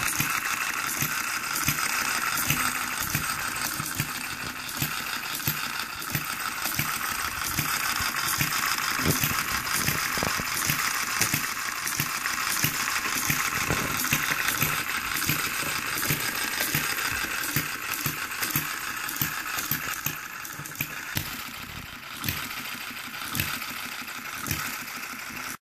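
One-third scale model New Holland gas engine running, with a steady rapid clatter of sharp metallic clicks and rattles over a constant hiss.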